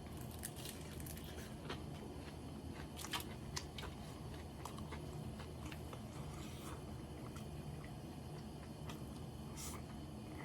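A person eating karaage (fried chicken) and rice: chewing, with scattered short crunchy clicks from bites, the sharpest about three seconds in, over a steady low hum.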